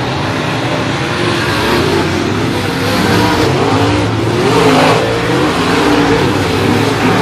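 Several dirt late model race cars' V8 engines running hard around a clay oval, their pitch rising and falling as they go through the turn. They are loudest as the pack passes close about four to five seconds in.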